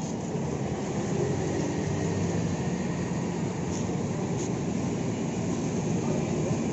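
A large vehicle's engine idling: a steady low rumble.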